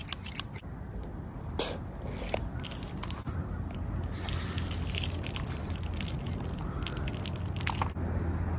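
Water-bead-filled squishy toy being cut open with a knife and its gel beads squished and spilling out by hand: a run of short crunchy clicks and squelches over a low steady hum.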